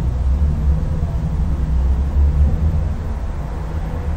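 Steady low rumble, with no distinct events.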